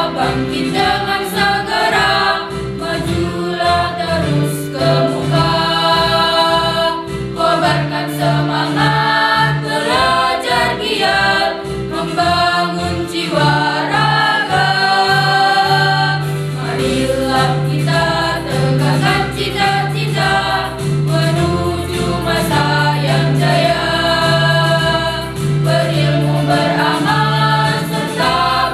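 Mixed choir of boys and girls singing together, accompanied by an electronic keyboard that holds sustained chords under a pulsing bass line.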